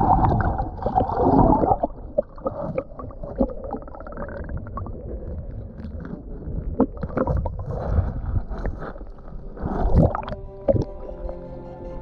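Muffled sloshing and gurgling of water through a camera held underwater, with scattered knocks and a louder surge about ten seconds in. Soft ambient music starts just after that surge.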